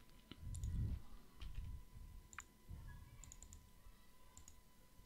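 Faint, scattered clicks of a computer mouse and keyboard, some single and some in quick runs of two or three. A soft low thud comes about half a second in, and a faint steady tone hums underneath.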